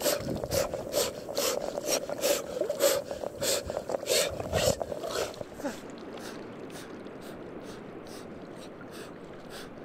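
Water splashing and sloshing around a man wading in a river, with short, hard breaths about twice a second. After about five seconds the splashing stops and only the steady wash of the river remains.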